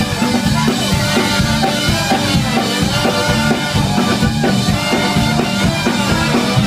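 Ska band playing live: drum kit with a steady beat, electric guitar and horns.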